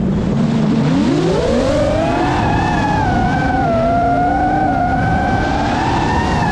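A 5-inch FPV quadcopter's brushless motors and propellers whine. The pitch sits low at first, then rises sharply about a second in as the throttle comes up, and holds high with small wavers. Loud wind noise on the microphone runs underneath.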